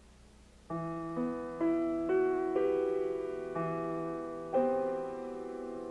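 Slow piano-style keyboard music enters about a second in, a melody of sustained notes, over a faint steady hum.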